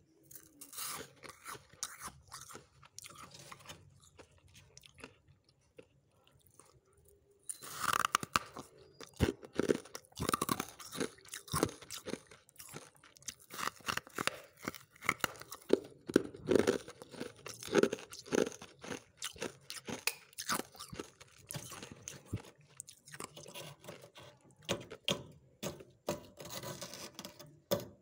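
Thick freezer frost being crunched and chewed, in quick irregular crunches. They are fainter at first and grow louder and denser about seven seconds in.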